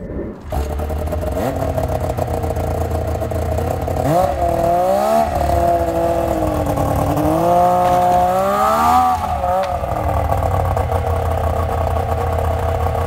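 Yamaha snowmobile engine running as the sled pulls up to and climbs a wooden loading ramp into a pickup bed, revving up twice, about four seconds in and again about eight seconds in.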